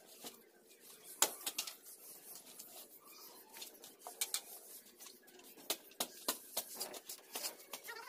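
Steel shovel scraping and knocking against a concrete floor as a heap of sand and cement is shovelled by hand for mortar: a string of short, gritty scrapes and clinks, the sharpest about a second in.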